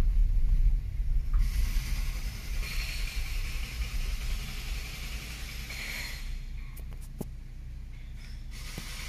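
Low rumble of a car moving, heard from inside the cabin, fading over the first few seconds; a higher hiss comes in about a second and a half in and drops away about six seconds in.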